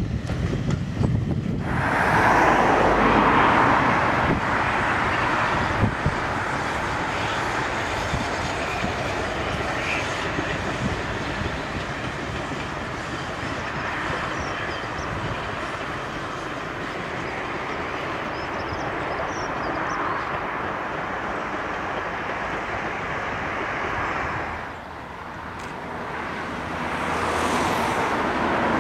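Steam-hauled passenger train running: the steam locomotive working and the coaches rolling over the rails, a steady rumble. After a drop about three-quarters of the way through, a locomotive working hard grows louder near the end.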